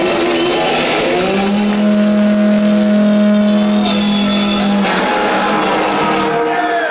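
Heavily distorted electric guitar, amplified very loud, sliding into one long sustained note that is held for about four seconds and then breaks off, the ringing end of a heavy-metal guitar passage.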